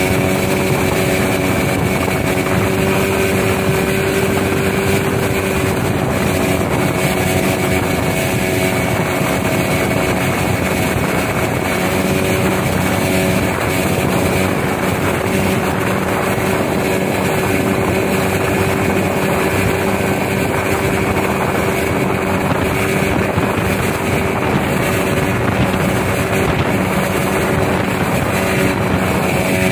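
Motor of a wooden longboat running at a steady cruising speed, holding one even pitch, over a steady rush of water and wind.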